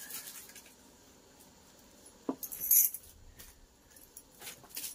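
An onion being peeled and cut by hand with a small knife: a few sparse light clicks, with a short crisp rustle a little past halfway, the loudest moment.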